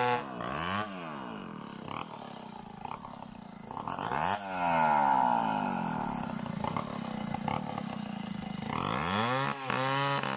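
Stihl 070 two-stroke chainsaw coming off full throttle, with its engine note swinging up and down twice as it is blipped about a second and four seconds in. Near the end it is revved back up to a high steady note.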